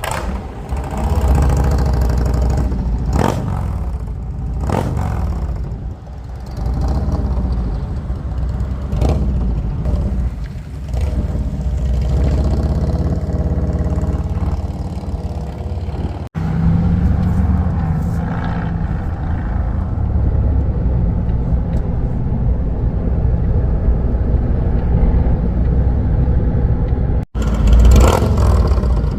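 Harley-Davidson Road Glide ST's Milwaukee-Eight 117 V-twin running through an aftermarket exhaust, with a deep low rumble that swells and eases as the throttle changes. It cuts off abruptly twice, about midway and near the end.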